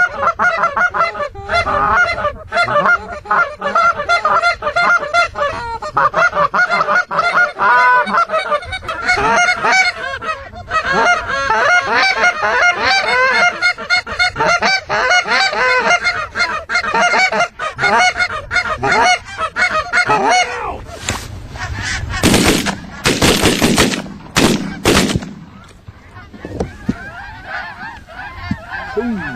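A large flock of geese honking continuously, many calls overlapping. About three-quarters of the way through comes a short cluster of sharp, loud bursts.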